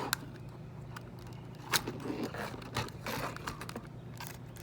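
Scattered light clicks and knocks of handling small objects, the loudest a little under two seconds in, over a faint steady low hum.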